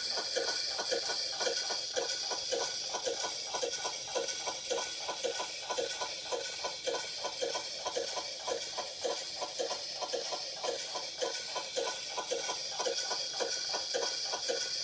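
Granular synthesis made in Max/MSP, chopping a recorded sound into short grains that repeat evenly about three times a second over a steady high hiss.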